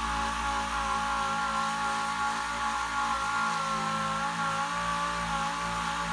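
DA sander running steadily, its pad sanding body filler on a truck dash: a steady whine with several close tones over a scratchy hiss.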